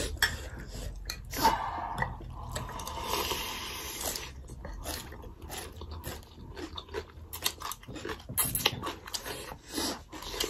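Close-up eating sounds: thukpa noodles being slurped and chewed, with a run of irregular wet mouth clicks and a longer slurp about three seconds in.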